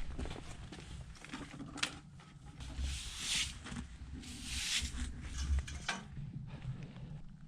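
Footsteps with rustling of clothing and gear: scattered light clicks and scuffs, and two longer rustling swishes about three and four and a half seconds in.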